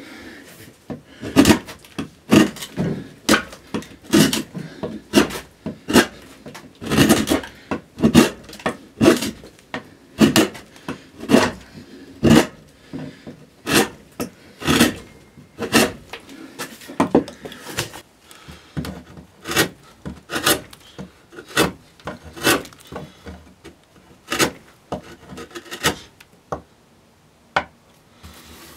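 Gouge cutting into a spruce cello top while roughing out the arching: a run of short scraping cuts, about one a second, with a brief pause near the end.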